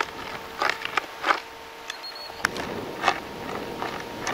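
Shotguns firing a quick string of about six shots in four seconds, each a short, sharp report, as a line of guns shoots at driven partridges.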